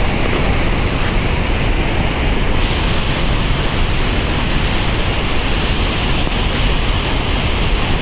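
Loud, steady rush of floodwater released through open dam gates, churning white water pouring over the spillway.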